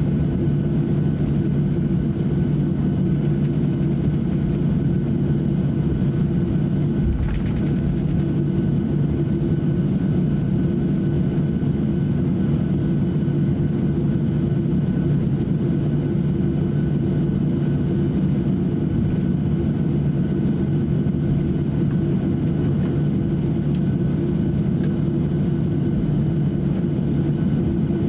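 Cabin sound of a Boeing 737-800 taxiing: its CFM56-7B jet engines at idle make a steady hum with a faint constant whine. There is a single low thump about seven seconds in.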